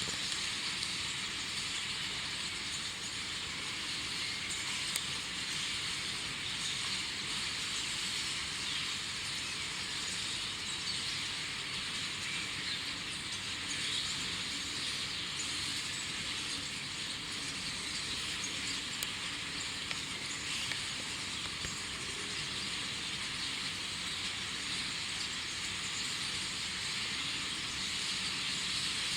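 Many birds singing at once, a dense chorus that blends into a steady wash with no single call standing out.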